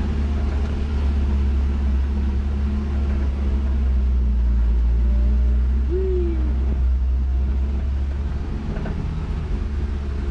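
Engine of a resort passenger cart running steadily with a strong low hum as it drives along, heard from inside its open wooden cab. A short falling squeal sounds about six seconds in.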